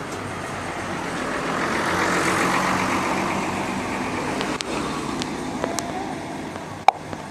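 A bus passing by, its engine and tyre noise swelling to a peak about two and a half seconds in, then fading. Two sharp clicks follow near the end.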